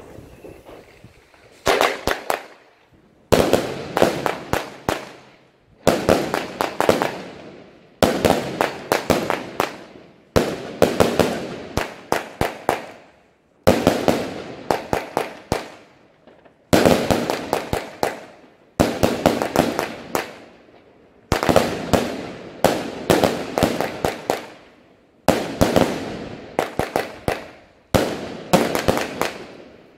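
A 64-shot titanium thunder salute firework cake firing volleys of loud salutes, starting about two seconds in. Each volley is a quick run of several sharp bangs, and the volleys come about every two to three seconds.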